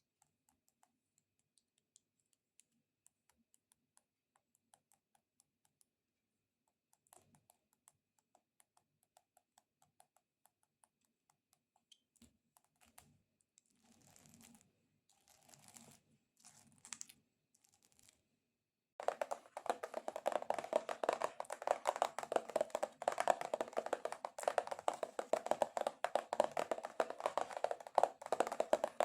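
Extra-long fingernails tapping faintly and sparsely on a cork circle, with a few brief rustles. Then, about two-thirds of the way in, they break into fast, loud, dense tapping and scratching on a cardboard box.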